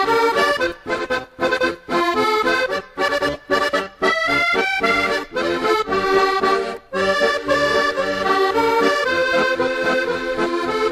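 Instrumental background music: a lively tune of quick, clipped notes that turn into longer, held notes in the second half.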